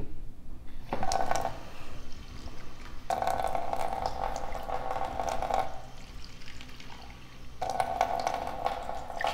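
Half a cup of water being poured, in three spells: a short splash about a second in, then two longer steady pours.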